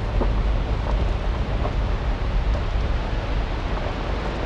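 Vehicle driving slowly on a gravel road, heard from inside: a steady low rumble of engine and tyres, with faint crackles of gravel under the tyres.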